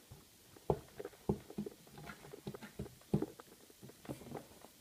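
Wet, jiggly slime being pressed and peeled against a mesh, giving irregular sticky clicks and small pops.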